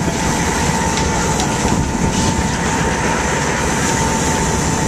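Steady loud rumble of the sportfishing boat's engines with wind buffeting the microphone, and a faint steady high whine above it.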